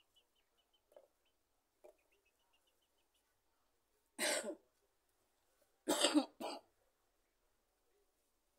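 A woman coughing: a pair of coughs about four seconds in, then another pair about a second and a half later.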